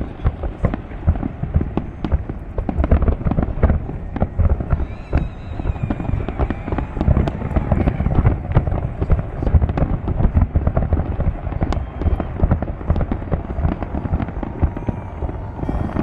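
Fireworks display: a dense, continuous barrage of bangs and crackles with no break.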